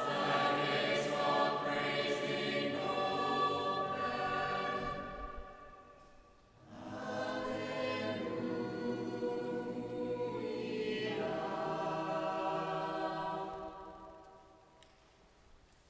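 Mixed youth choir singing a cappella in slow, held chords. One phrase dies away about five seconds in; after a short pause a last phrase is sung and fades out into the church's echo near the end.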